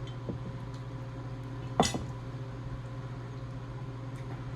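A sharp clink of tableware about two seconds in, with a couple of fainter taps, over a steady low hum.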